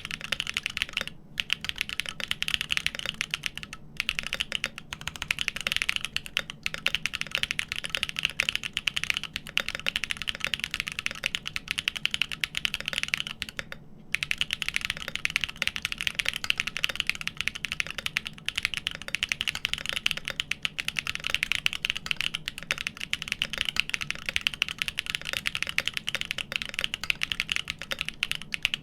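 Fast, continuous typing on a GEON Frog TKL mechanical keyboard with an aluminium plate, lubed Everglide Dark Jade Black linear switches on 72 g springs, and Infinikey Dark Mode keycaps. The keystrokes come in a dense, steady stream, broken by a few brief pauses: about a second in, near four seconds, and near fourteen seconds.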